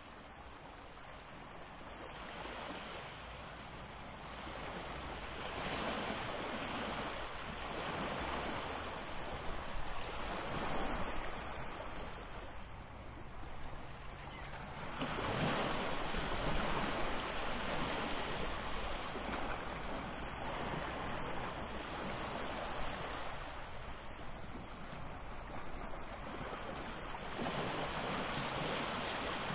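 Ocean waves: a steady rush of surf that swells and eases every few seconds.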